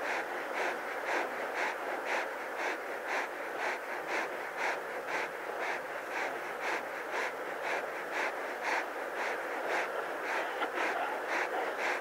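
Close-up lion panting rapidly and evenly, about three to four breaths a second: panting to shed heat while resting in the heat of the day.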